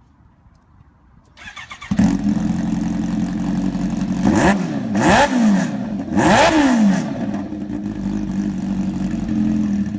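Kawasaki Ninja H2's supercharged inline-four cranked on the starter and catching about two seconds in, then idling and blipped twice on the throttle, the pitch rising and falling each time, before settling back to idle.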